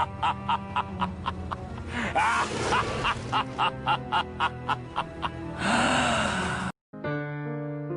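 Sound-effect music clip: a steady low drone under a regular ticking about three times a second, with a few vocal sweeps and a burst of hiss near the end. It cuts off suddenly just before 7 seconds in, and a piano tune starts.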